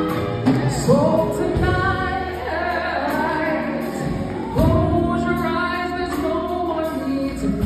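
A woman singing a gospel song into a handheld microphone, her voice sliding into long held notes, over a steady low instrumental backing.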